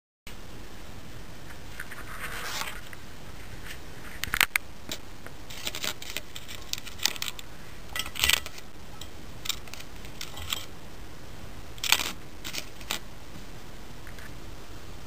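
Light metallic clicks and taps of a small metal pot being handled and set onto a thin wire pot stand, over a steady faint hiss; the sharpest clicks come about four, eight and twelve seconds in.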